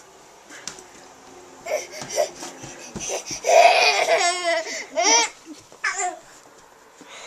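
Laughter and a toddler's babbling in short high-pitched bursts, the longest from about three and a half to five seconds in.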